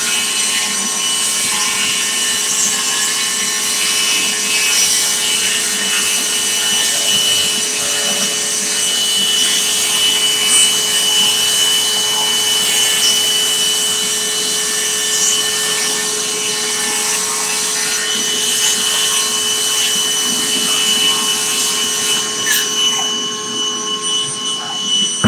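DeWalt cordless circular saw ripping along a door against a clamped straight edge, running steadily together with a dust extractor drawing sawdust through a hose at the saw's dust outlet. Both stop at the very end.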